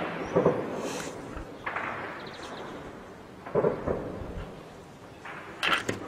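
Gunshots, each with a rolling echo: several single shots spread out, a quick pair of cracks about halfway, and a short cluster of shots near the end.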